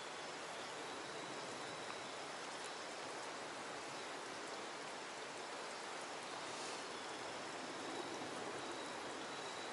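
Steady outdoor water noise, an even hiss with no distinct splashes or knocks.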